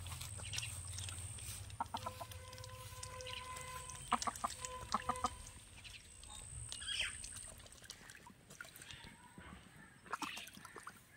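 Chickens clucking: a drawn-out call about two seconds in, then a quick run of sharp clucks about four to five seconds in.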